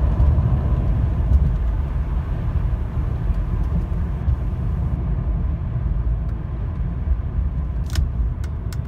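Mercedes-Benz W124 engine and drivetrain heard from inside the cabin under hard acceleration: a loud, steady low rumble. The owner says the car has never been this loud and traces the fault to a failing engine wiring harness. A regular ticking, about two a second, starts near the end.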